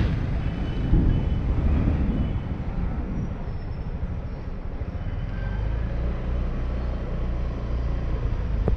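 Street traffic noise: vehicles passing with a steady low rumble.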